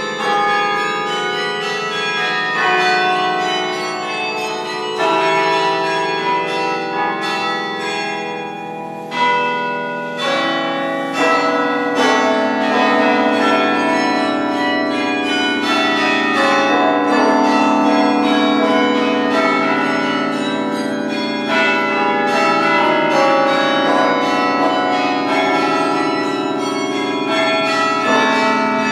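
Duke Chapel carillon bells playing a piece, played by hand from the baton keyboard. Many bell notes are struck in quick succession and ring on over one another.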